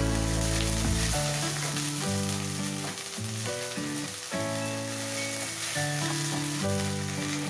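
Chopped onion frying in hot oil in a kadai, a steady sizzle with some stirring, under background music of slow held notes.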